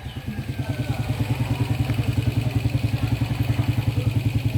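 Kawasaki Ninja ZX-25R's 249 cc inline-four idling at low revs through its stock exhaust: a steady, evenly pulsing exhaust note that grows louder over the first second.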